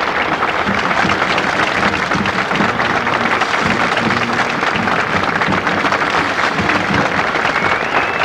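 Large stadium crowd applauding steadily, heard through an old cassette recording made in the stands.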